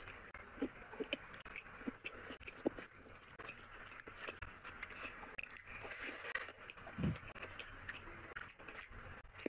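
A person chewing and eating rice and curry by hand: wet mouth sounds and short scattered smacks and clicks, with one louder low thump about seven seconds in.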